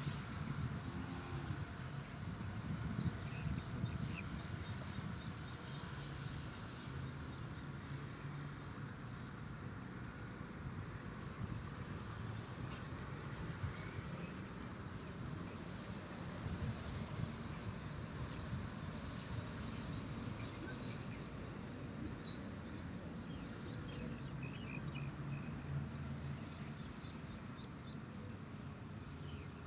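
Rural outdoor ambience: a steady low rumble under short, high chirps that recur irregularly about once a second, with a few brief bird calls past the middle.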